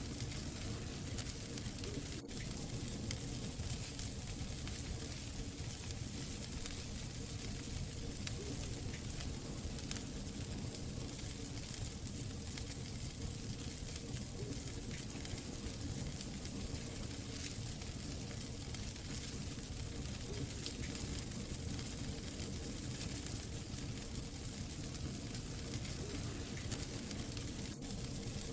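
Wood fire burning in a fireplace: a steady hiss and crackle of burning logs over a low rumble, with a few small pops standing out.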